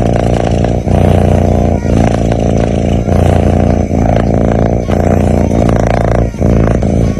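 Sleeping cat snoring loudly: a continuous low rumble that breaks briefly about once a second as it breathes.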